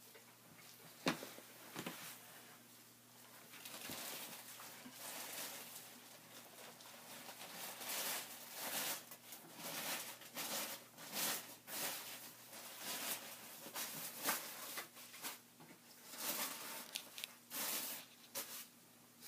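Kittens scrambling and playing, with irregular scratchy rustling and crinkling of plastic under their paws.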